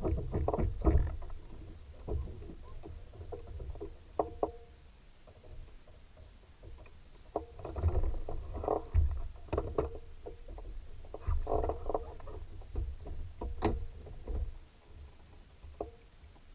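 Knocks and water sounds from a kayak, coming in several clusters a few seconds apart with quieter stretches between.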